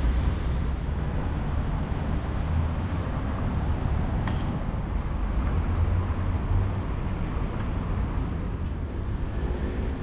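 Steady outdoor street noise, a low rumble of road traffic, with one faint click about four seconds in.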